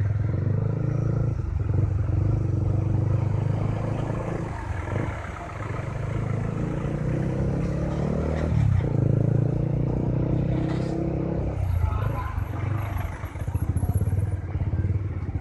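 Honda CB150R's single-cylinder engine running at low speed in stop-and-go traffic, its note dropping and picking up again a few times as the throttle is eased and reopened.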